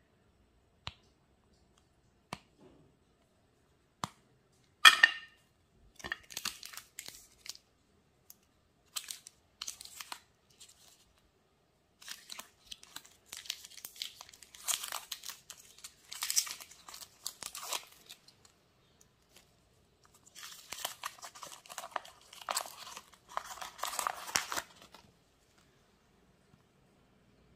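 A red KitKat wrapper being torn open and crinkled by hand, in three bouts of rustling and tearing. A single sharp snap comes about five seconds in.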